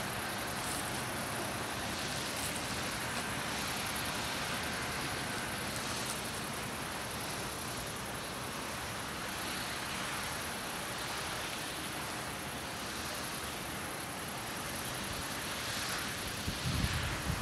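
Steady outdoor background noise, an even hiss with a faint distant hum. Near the end, wind starts buffeting the microphone in low rumbling gusts.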